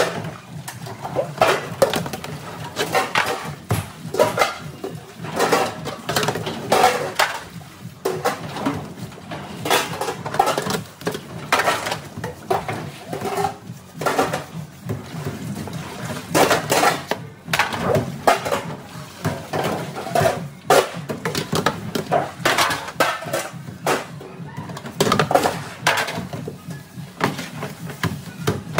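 Stainless steel restaurant pans clattering and scraping against each other and the steel sink as they are hand-washed and stacked, with irregular clanks throughout.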